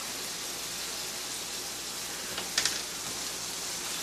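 Meat sizzling in a frying pan on a gas stove, a steady hiss, with one short, sharp clatter about two and a half seconds in.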